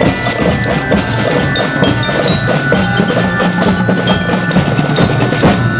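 Marching band percussion: a glockenspiel plays a melody of high ringing notes over a dense, steady beat of snare and tenor drums.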